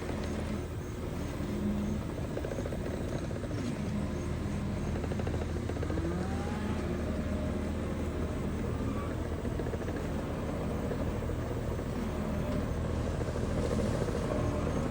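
Engine of a joystick-controlled farm machine running steadily, with a low, even hum.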